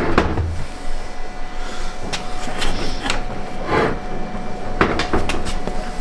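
Scattered knocks and clicks of hard plastic and metal parts being handled on a front-loading washing machine during disassembly.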